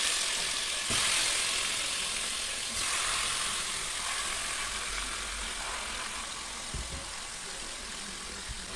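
Raw chicken pieces sizzling as they are dropped into a hot pot to fry. The sizzle swells about a second in and again about three seconds in as more pieces go in, then slowly dies down.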